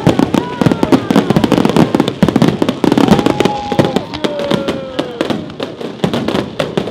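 Fireworks display: a dense, rapid barrage of bangs and crackles from bursting shells, with a few drawn-out tones sliding down in pitch over it. The barrage thins slightly near the end.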